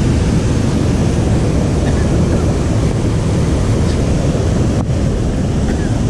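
Steady rush of water from the waterfall and the rocky stream below it, a loud, even noise.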